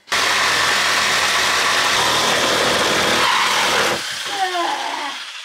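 A power tool cutting into wood. It starts abruptly, runs steadily and loudly for about four seconds, then stops.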